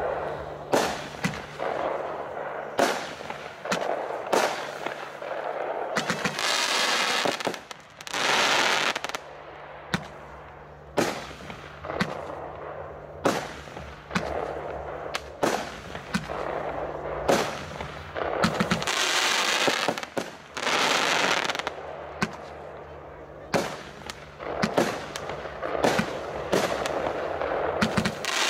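Category F2 fireworks battery, the 21-shot, 30 mm calibre "Incredible", firing shot after shot with sharp bangs about once a second. Longer hissing stretches come about six seconds in and again about nineteen seconds in.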